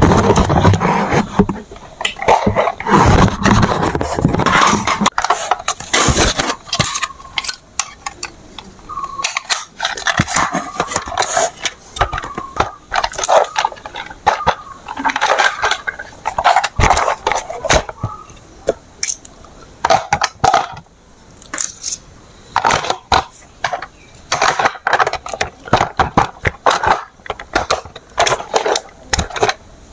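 Hard plastic toy parts and packaging being handled: irregular clicking, clattering and rustling.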